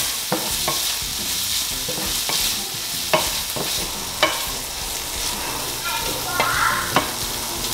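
Salt cod and onions frying in oil in a nonstick skillet with a steady sizzle, stirred with a wooden spoon that knocks sharply against the pan a few times.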